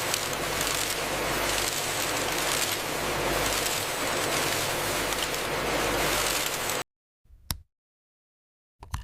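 Steady rushing machine noise with a low hum underneath, like factory machinery running. It cuts off abruptly about seven seconds in, and a couple of sharp clicks follow in silence.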